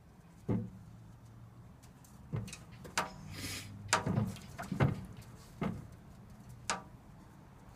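Turtle shells knocking against each other and the hard floor as the turtles shift: about eight sharp knocks, with a brief scrape near the middle.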